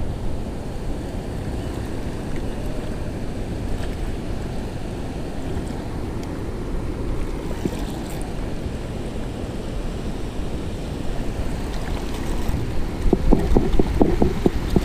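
Wind buffeting the microphone over the steady wash of surf. About thirteen seconds in, louder splashing and sloshing of shallow water takes over.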